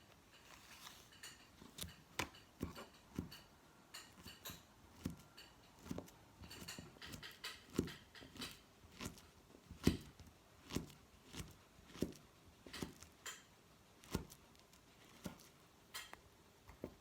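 A run of light knocks and clicks from things being handled, irregular at first, then falling into a rough beat of about one and a half a second from about halfway through.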